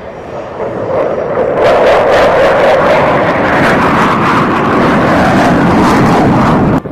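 Loud roar of an aircraft flying past low, building over the first couple of seconds and then holding strong before cutting off suddenly near the end.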